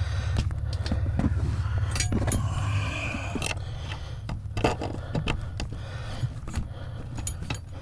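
Scraping and irregular clinks and knocks of an accelerator pedal and its cable being handled and fed through a hole in a car's firewall, metal rubbing against metal, over a steady low hum.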